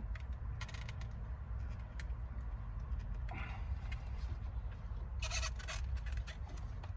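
Light clicks and a brief rustle from hands handling the steering-wheel airbag module and its horn wiring, with a short cluster of clicks about five seconds in, over a steady low background rumble.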